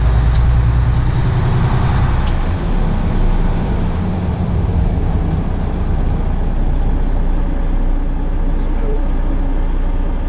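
Semi truck's diesel engine running and road noise inside the cab at highway speed: a steady low drone that eases off about two and a half seconds in, with a couple of faint clicks early on.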